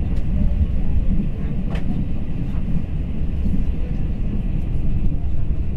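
Steady low rumble of a passenger train running along the track, heard from inside the carriage, with a light click about two seconds in.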